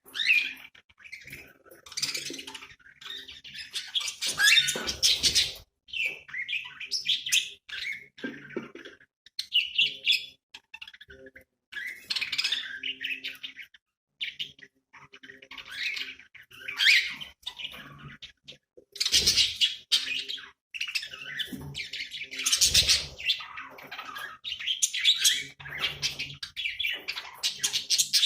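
Budgies chirping and warbling in overlapping bursts, with short pauses between.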